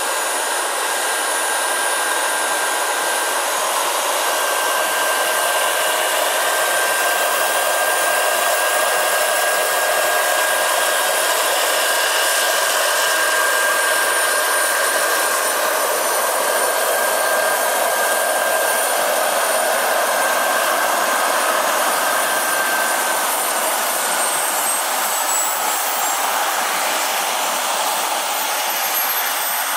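Turbine engine and coaxial rotors of a 1/5-scale RC Kamov Ka-32 model helicopter running as it hovers and sets down, a steady rushing hiss with a thin high whine. In the last few seconds, with the model on the ground, a high whine drops in pitch as the turbine throttles back.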